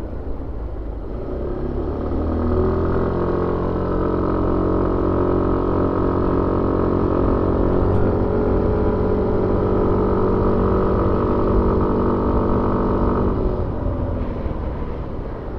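Suzuki Avenis 125 scooter's single-cylinder engine under way, heard onboard: the revs climb about two seconds in, hold a steady drone, then drop off near the end.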